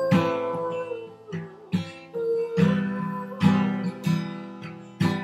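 Acoustic guitar strumming chords, a handful of strokes about a second apart, each left ringing before the next.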